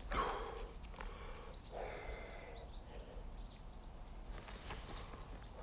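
Hands rummaging and scraping in loose earth and rubble, in soft irregular rustles, over a low steady rumble of handling noise on the microphone.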